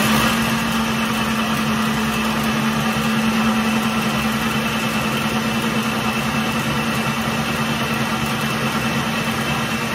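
Electric blender running at one steady speed, blending a drink of tea, castor oil and almond butter: a loud whirring rush over a steady motor hum.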